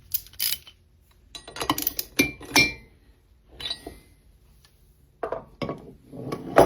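Scattered light metallic clinks and taps as spark plugs and a cylinder head are handled, a couple of them ringing briefly.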